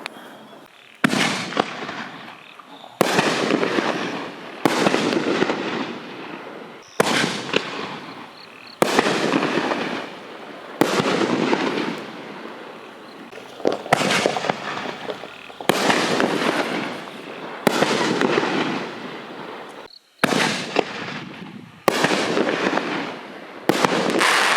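Large aerial firework canister shells going off one after another, about every two seconds. Each sharp bang across the whole range is followed by a loud noisy tail of a second or two that fades away.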